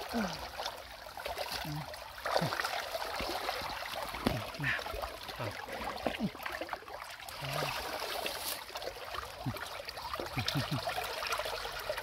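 Shallow canal water running and trickling steadily, with small gurgles.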